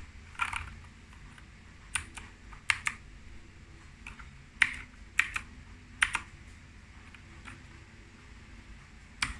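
Keychron K4 mechanical keyboard: single keys pressed one at a time at irregular intervals, about nine sharp clicks in all, some in quick pairs.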